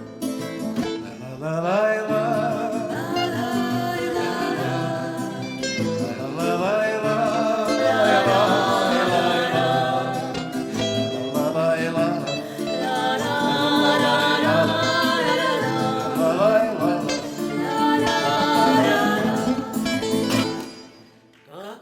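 Vocal quartet singing in harmony to acoustic guitar accompaniment, with no words heard, in a bard song. The music breaks off briefly near the end.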